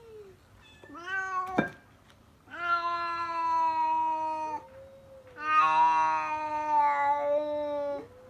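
A cat meowing: a short rising meow about a second in, then two long, drawn-out yowls of about two seconds each.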